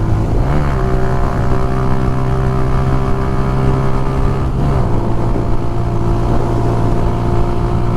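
Motorcycle engine running at a steady cruise, its pitch rising slightly about half a second in and dropping back near five seconds, with a constant low wind rumble.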